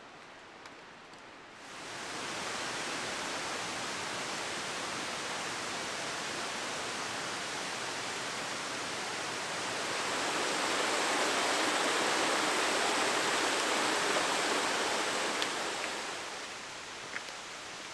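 Rushing mountain stream: a steady water noise that sets in about two seconds in, swells louder in the middle and eases near the end, with a couple of light taps near the end.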